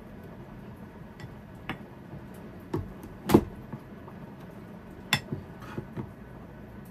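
Plastic rice paddle scooping cooked rice from a metal pot into a ceramic bowl: about six short knocks and taps of the paddle against the pot and bowl, the loudest a little past the middle.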